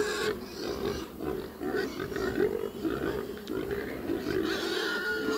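Pigs screaming and grunting in a steady, uneven racket of calls.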